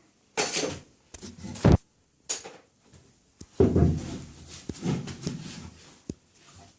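Irregular metal clunks and clicks from the timing gear and engine parts of a Dnepr MT 10-36 motorcycle engine being rocked and handled by hand to check for play. One sharp knock about two seconds in is the loudest.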